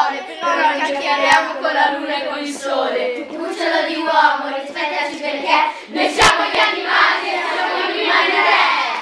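A group of children singing together in unison, with a few sharp knocks or claps, the loudest about six seconds in.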